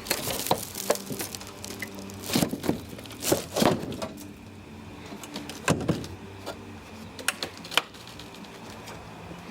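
Irregular knocks and thuds, roughly a dozen scattered hits with the loudest a little after two seconds, around three and a half seconds and near six seconds, over a faint steady low hum.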